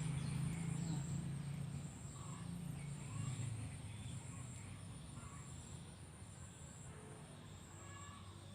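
Insects trilling outdoors: a steady high whine with a second high buzz pulsing on and off about once a second. A low hum is there for the first few seconds and then fades, and faint short bird chirps are scattered through it.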